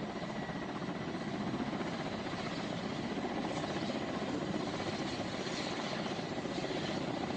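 Helicopter running, a steady dense rotor and engine noise with a rapid flutter and no change in level.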